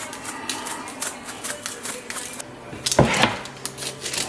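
Spice jar shaken over raw chicken breasts on a parchment-lined baking sheet, a quick run of rattling shakes about four or five a second. About three seconds in comes one louder scrape and rustle, followed by a few more light shakes.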